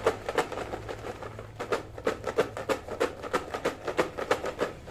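Folded paper raffle slips rattling and tumbling inside a clear plastic container that is being shaken back and forth to mix them: a fast, uneven run of clatters, about five or six a second.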